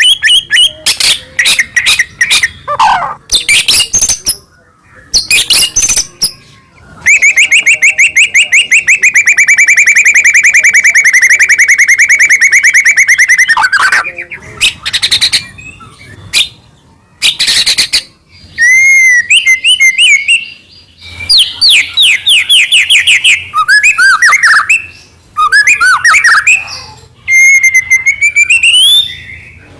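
White-rumped shama singing loudly and continuously in varied phrases. Quick runs of repeated notes lead into a long, fast trill of about six seconds. Then come short phrases of rising and falling whistled notes, ending on a rising whistle.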